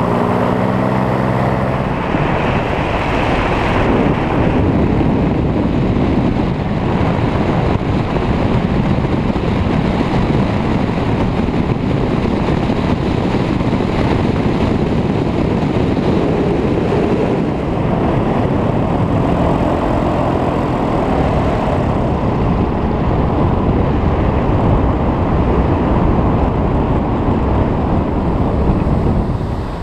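Paramotor engine and propeller running steadily in flight, with heavy wind rushing over the microphone.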